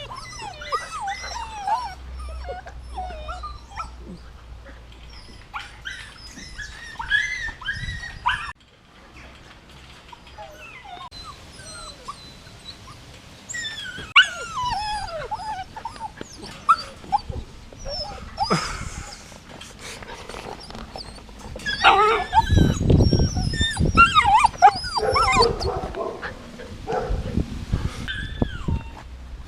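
Golden retriever puppies whining, yipping and giving little barks as they play, many short high calls that slide up and down. About two-thirds of the way through, a run of heavy low thumps joins in and is the loudest part.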